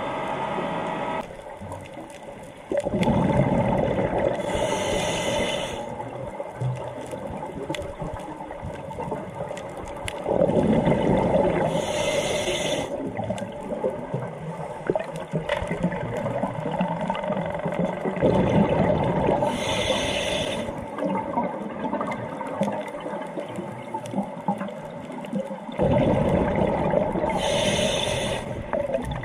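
Scuba regulator breathing underwater: four breaths about seven or eight seconds apart, each a loud burble of exhaled bubbles with a short hiss, with quieter water noise between them.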